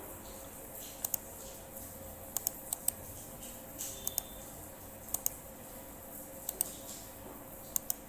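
Clicks of a computer mouse and keyboard during copy-and-paste work, coming every second or so, mostly in quick pairs, over a faint steady hum.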